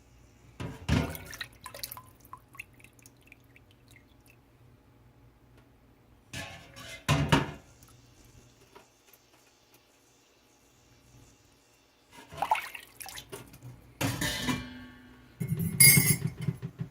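Ceramic spoon holder clattering and scraping against a stainless steel pot in several separate bursts: one about a second in, one about seven seconds in, then a busier run near the end. A faint steady low buzz lies under the quiet stretches between them.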